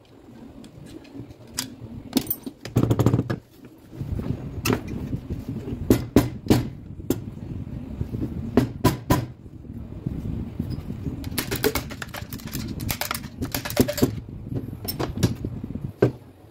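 Metal parts of a Makita HM1303 demolition hammer being handled during disassembly: irregular clanks and knocks of steel parts against each other and the work surface. There are bursts of rapid clattering about 3 seconds in and again around the middle, over a steady low hum.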